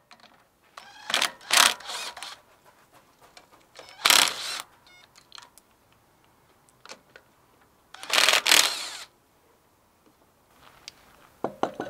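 Socket wrench working the wheel nuts of a Vespa's wheel: three short bursts of ratcheting clicks and metal-on-metal tool noise.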